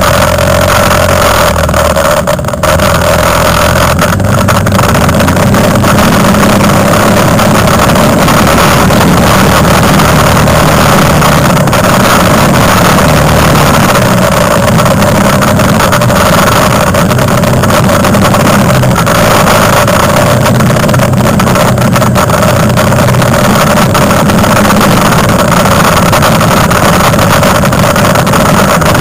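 Quad bike (ATV) engine running loud and steady while riding along a dirt track, heard from on board.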